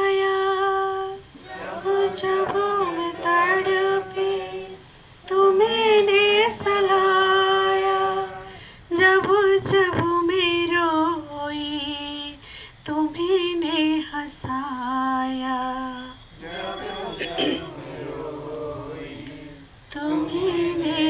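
A woman singing a Hindi devotional bhajan unaccompanied, drawing out long ornamented notes in phrases a few seconds long, with short breaks for breath between them.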